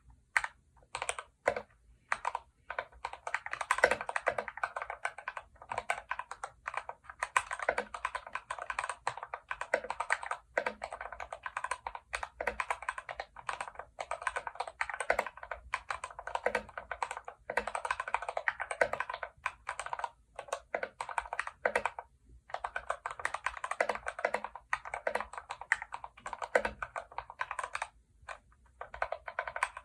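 Fast typing on a Yunzii YZ68 mechanical keyboard with Gateron red linear switches and three layers of foam dampening underneath: a dense run of keystrokes with brief pauses, after a few single key presses at the start.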